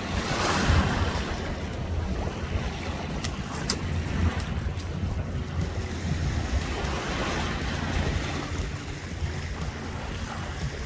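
Small waves washing onto the shore, swelling near the start and again about seven seconds in, over a low rumble of wind on the microphone, with a few faint ticks around three to four seconds in.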